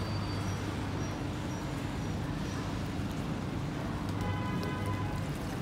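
Steady city street noise with a low hum underneath. About four seconds in, a high whine of several tones together sounds over it for about a second.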